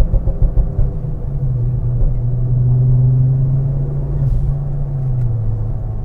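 Turbocharged car driving: a rapid, uneven pulsing rumble for about the first second, then a steady engine drone at cruising speed that dips slightly in pitch near the end.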